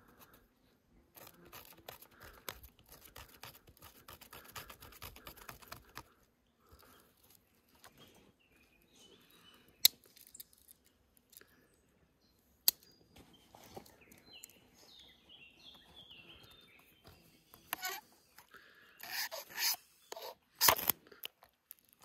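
Victorinox Huntsman Plus pocketknife scraping tinder from bark in quick repeated strokes, with two sharp clicks in the middle. Near the end come several louder, harsh strikes along the knife's saw blade to throw sparks for a fire.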